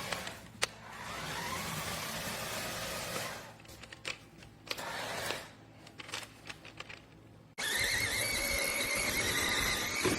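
Electric drive motors of a 1:16 4WD RC monster truck whining, rising in pitch as they speed up, then stopping and starting with scattered clicks and knocks. About three-quarters of the way through, the sound cuts suddenly to a louder, steadier high whine.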